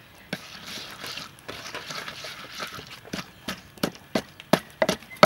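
Liquid poured into a clay mortar and worked into the paste with a wooden pestle: a soft wet swishing, then the pestle pounding in steady dull thuds about three a second, the last one the loudest.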